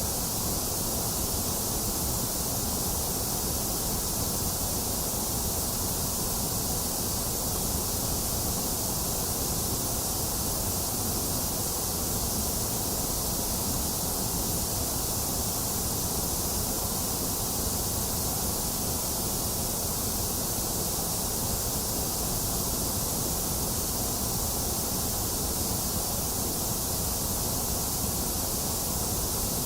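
Box fan running and rain falling together, one constant even hiss that does not change.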